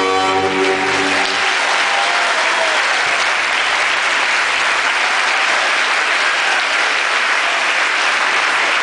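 Theatre audience applauding steadily after a ballet variation; the orchestral music's final held chord fades out about a second in.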